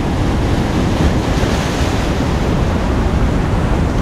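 Surf washing in over rocks and through foam, with wind buffeting the microphone. The wash swells briefly about a second in.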